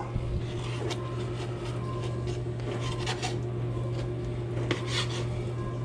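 Knife cutting through a raw fish fillet on a plastic cutting board, trimming out the bloodline: a few soft taps and scrapes about one, three and five seconds in, over a steady low hum.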